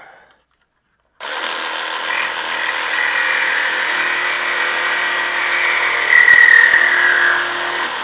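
WORX Axis 20-volt cordless saw, used as a mini reciprocating saw, running steadily as its blade cuts through a nail at the edge of a door. It starts about a second in, gets louder around six seconds in, and cuts off suddenly at the end.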